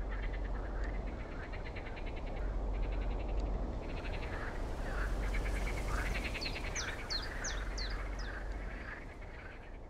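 A chorus of frogs croaking in rapid pulsed calls, with a few short, high bird chirps about two-thirds of the way through.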